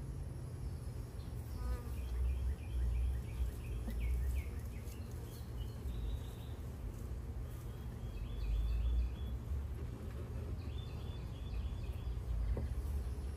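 Honeybees buzzing around an open hive as frames are lifted and handled, over a steady low rumble. A short phrase of quick high chirps comes three times.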